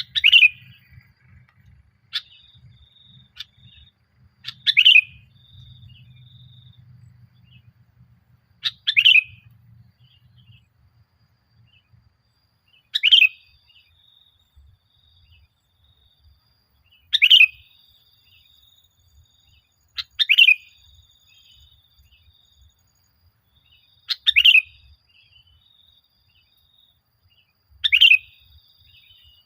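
Sooty-headed bulbul (kutilang) singing: short, bright phrases repeated about every four seconds, with fainter thin notes between them.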